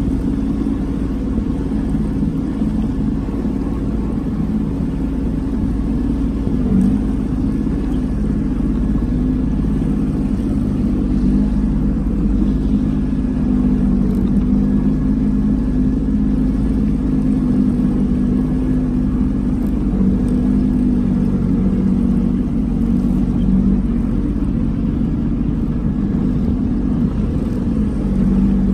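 Personal watercraft engine running steadily, an even low drone that holds its pitch.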